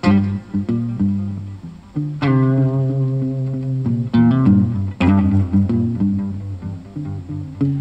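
Guitar-led music with a strong bass line, played back through a Super SP-65C car component speaker set (woofer and tweeter) as a sound test.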